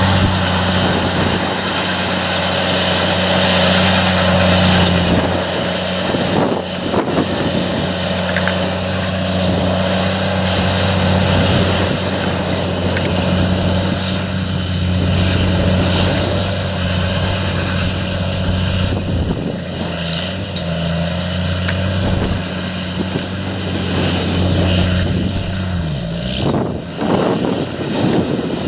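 An engine running steadily: a constant low hum over a wash of noise, its pitch dipping briefly near the end.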